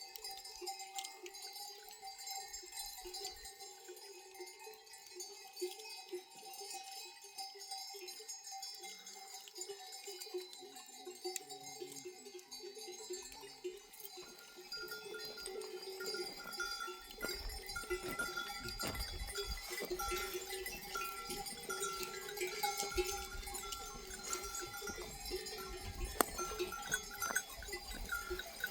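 Sheep bells on a grazing flock, clanking and ringing unevenly as the sheep move. A low rumble comes in about halfway through.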